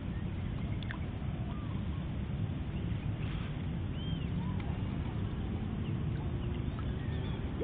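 Steady low outdoor rumble with a few faint, short whistled bird calls over it.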